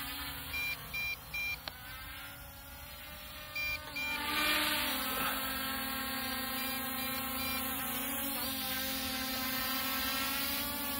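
MJX Bugs 2 quadcopter's brushless motors and propellers whining in a hover, their pitch wavering up and down about four seconds in as it works to hold height under a heavy gimbal-and-action-camera payload. A few short electronic beeps sound in the first four seconds.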